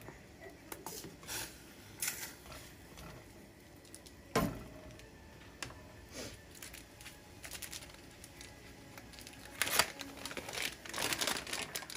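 A pot of instant noodles boiling hard, with scattered crackling clicks and a single louder knock about four seconds in. Crinkling starts near the end.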